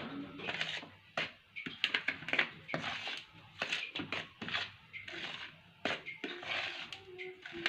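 Irregular scraping and rustling strokes with a few sharp knocks: flour being worked into a soft biscuit dough in a bowl.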